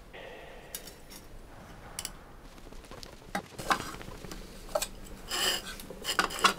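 A metal spoon clinking against a ceramic cup: scattered sharp clinks, mostly in the second half, with a brief scrape in between.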